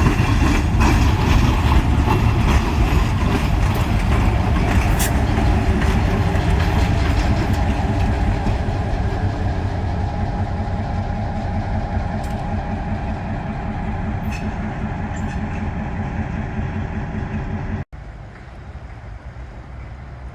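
Two diesel switcher locomotives running through the rail yard, a heavy steady engine rumble that slowly fades as they move off. Near the end the sound drops suddenly to a quieter background.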